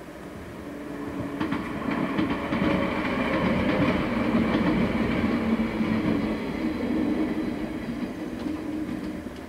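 JR West 115-series electric train passing close by. The rumble builds over the first seconds, with the wheels clicking over the rail joints, peaks around the middle and then fades away.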